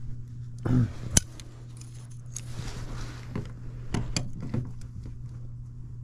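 Scattered light clicks and rattles of parts or tools being handled, the sharpest a single click about a second in, over a steady low hum of running equipment.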